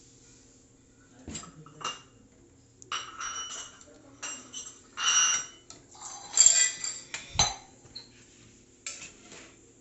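Metal kitchen utensils and pots clanking and clinking: a series of separate knocks, several of them ringing on briefly, the loudest about six and a half seconds in.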